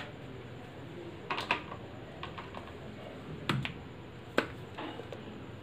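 A few light, separate clicks and knocks, the sharpest about three and a half and four and a half seconds in, from plastic spice jars and a spoon being handled around a plastic mixing bowl.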